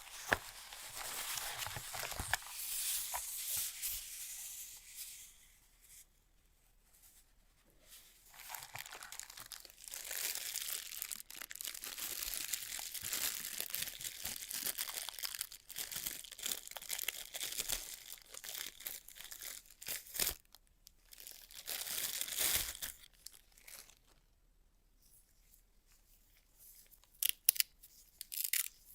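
Product packaging being torn open and crinkled, in two long stretches with a short pause between. A few sharp clicks come near the end.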